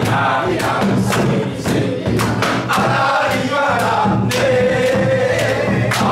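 A group singing a Korean folk song (minyo) in chorus, with steady drum strokes and hand claps keeping the beat about twice a second.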